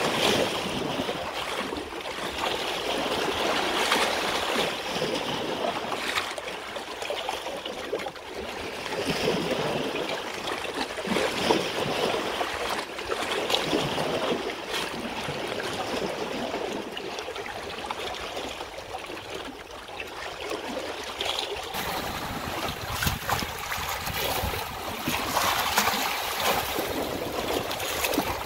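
Water running in a stream, a continuous rushing and trickling that swells and eases. It turns more hissy about three-quarters of the way through.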